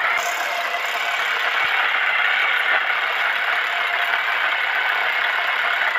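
Electric drill boring into a plastered masonry wall, running steadily under load without a break.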